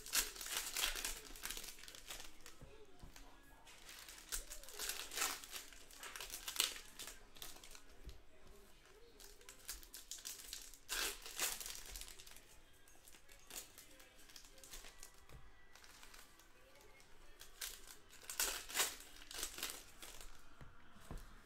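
Foil wrappers of Panini Donruss baseball card packs being torn open and crinkled by hand, in bursts of sharp crinkling every few seconds with quieter handling between.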